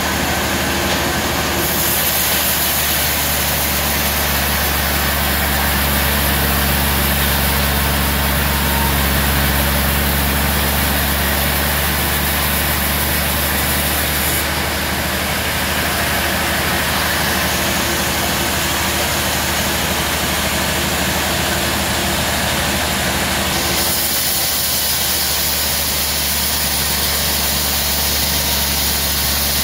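Large sawmill band saw running steadily, its motor humming, while the blade cuts lengthwise through a log with a continuous hiss; the hiss changes character a few times as the cut goes on.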